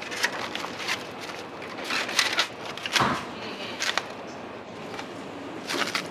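Irregular clinks, knocks and scrapes of utensils and containers in a commercial kitchen during food preparation, with a louder knock about three seconds in.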